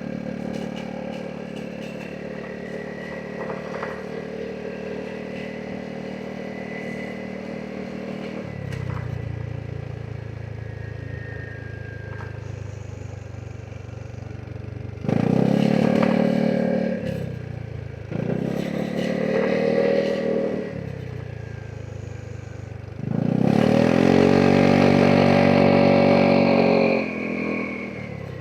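Vespa GTS 300 SuperSport scooter's single-cylinder four-stroke engine under riding load, steady at first, then easing off after about eight seconds. Three surges of hard acceleration follow, the last and longest near the end.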